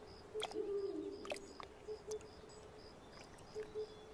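Night ambience of insects chirping in an even rhythm, high-pitched and about three chirps a second, over a steady low hum that pulses in pairs. A few sharp clicks and a short falling call come in the first second or so.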